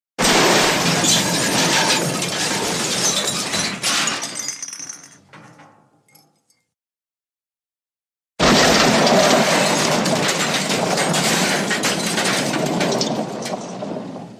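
Two crash sound effects with breaking, shattering glass. The first is loud from the start, then fades into a few scattered small clinks of falling debris; after about two seconds of silence, a second long crash runs at an even level and cuts off suddenly at the end.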